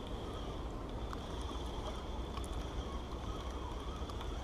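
Steady wind and small waves lapping at a rocky shore, with a few faint ticks.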